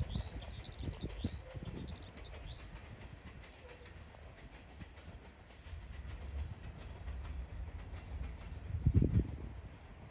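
Freight train running, an electric locomotive hauling a string of tank wagons, heard as a low steady rumble with faint wheel clicking. Birds chirp over it for the first couple of seconds, and a louder low rumble swells briefly about nine seconds in.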